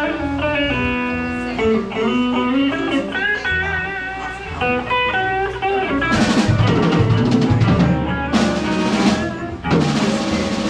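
Live blues band playing: a guitar runs lead lines over the rhythm, and about six seconds in the drum kit comes in hard with cymbal crashes and the full band.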